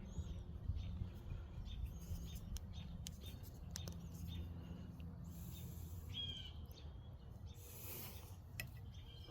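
Faint bird chirps, scattered short calls over a steady low background rumble, with a few light clicks.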